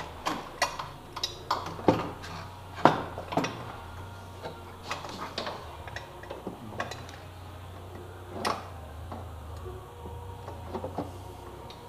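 Irregular metallic clinks and taps of a 6 mm Allen socket on a wobble extension working at the exhaust Y-pipe bolts of a Polaris 850 snowmobile engine. The loudest clink comes about three seconds in.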